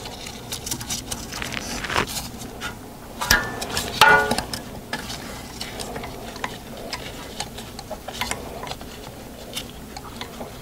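Hand tools clicking and scraping against metal at a wheel hub, in a string of small, irregular ticks, with a couple of brief squeaks a few seconds in.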